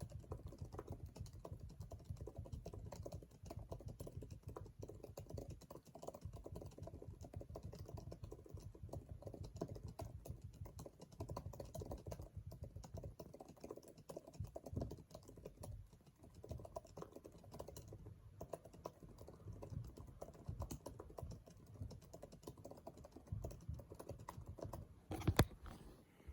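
Fast, continuous typing on a $1000 mechanical keyboard, a dense patter of keystroke clicks. One louder knock comes about a second before the end.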